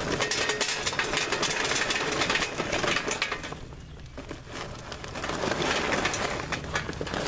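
Charcoal briquettes poured from a paper bag into a metal chimney starter, clattering densely against the metal and each other. The pour thins out for about a second midway, then picks up again.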